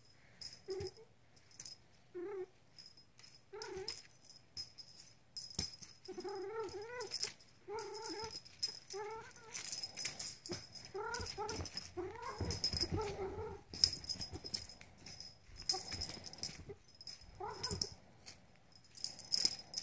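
A house cat at play, giving many short chirping calls that rise and fall, with a toy jingling or rattling between them and a spell of rustling on the bedding about two-thirds of the way through.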